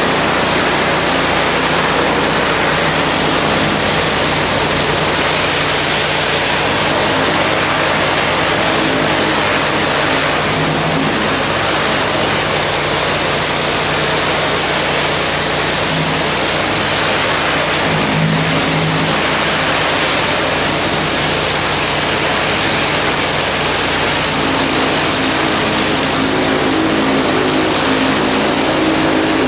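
Pressure-washer wand spraying high-pressure water against a concrete tunnel curb and walkway, a loud steady hiss of spray with an engine humming underneath.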